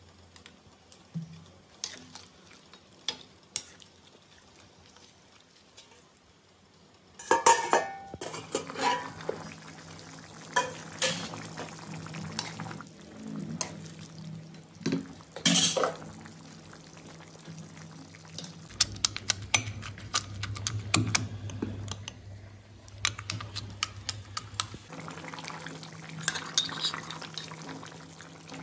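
Steel spoon stirring and scraping pork curry in a steel kadai, with repeated clinks of metal on the pan over the faint sizzle of the simmering gravy. The first several seconds hold only a few light taps; from about seven seconds in the stirring gets louder and busier.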